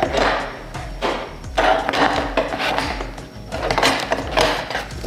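Kawasaki Z900RS plastic tail fairing knocking and scraping against the rear rack and frame as it is offered up into place, in several short clattering bursts, over background music with a steady beat.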